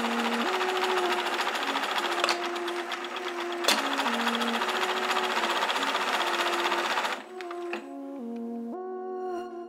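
Global ZZ1567-75 industrial longarm zigzag sewing machine running at speed, stitching zigzag with a fast, even clatter, then stopping abruptly about seven seconds in. Background music runs underneath throughout.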